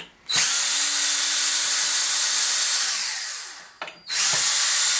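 DeWalt cordless drill running at steady speed, spinning the sculpture armature's rod to work it out. It runs for about two and a half seconds and winds down, then starts again about four seconds in.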